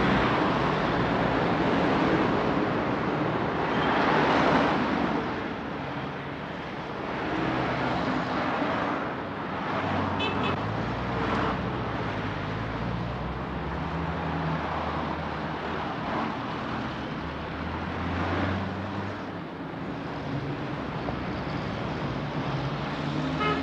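Road traffic: cars driving past one after another, a steady engine hum with swells as vehicles go by. Two small clicks come near the middle.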